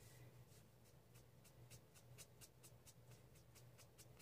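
Near silence: faint, quick strokes of a wet paintbrush on watercolor paper, drawing and blending marker ink, over a low steady hum.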